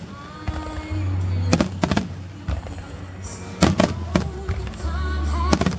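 Fireworks bursting in the air: about five sharp bangs, some echoing, over music with a heavy bass.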